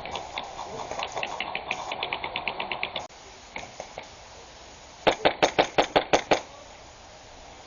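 Airsoft rifle firing a quick string of about ten shots in roughly a second and a half, about five seconds in. Before it, for about three seconds, a fainter run of rapid clicks over a rustling sound.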